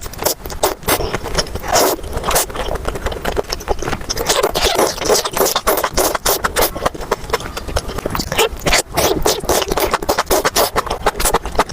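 Close-miked eating: chewing and mouth sounds, a dense run of quick wet clicks and smacks that keeps going without a break.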